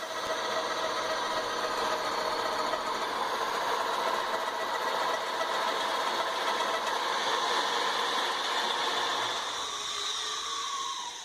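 Ridgid half-inch electric drill driving a homemade lathe, spinning a wooden bedpost with a steady run and some rattle. The drill is held to low speed on 12 volts from a battery charger. Near the end its pitch falls and the sound dies away as it slows.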